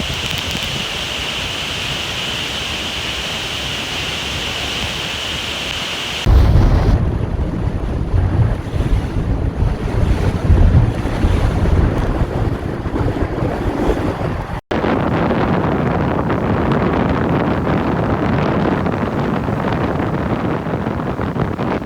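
Three water recordings joined by sudden cuts. First a steady hiss of rushing water. About six seconds in it switches to louder surf with wind buffeting the microphone in gusts. Near the middle it cuts to a steadier wash of surf.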